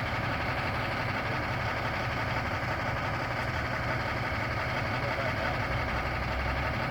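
Heavy diesel engine idling steadily with an even low rumble.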